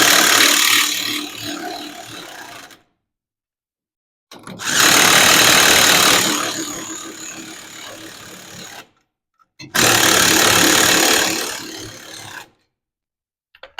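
A power tool with a 5/8 deep-well socket runs the nuts down onto the spring hanger studs in three bursts. Each burst starts loud and trails off over a few seconds.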